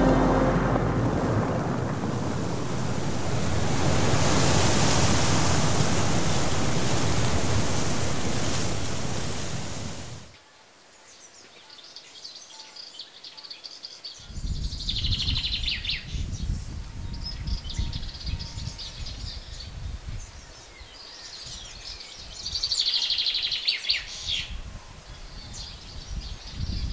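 Waves breaking, a loud churning rush of surf, which cuts off abruptly about ten seconds in. Then wind gusts rumble on the microphone while birds chirp in short bursts.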